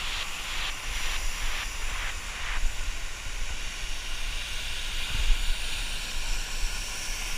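Steady rushing of a waterfall, with wind rumbling on the microphone. For the first two and a half seconds a hiss pulses about twice a second, then stops.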